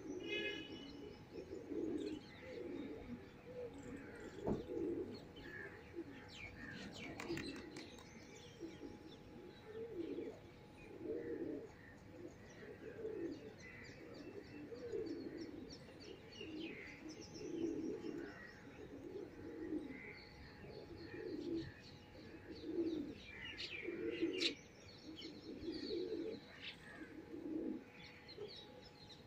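Pigeons cooing close by, a steady run of low soft coos about one a second, with small birds chirping higher above them.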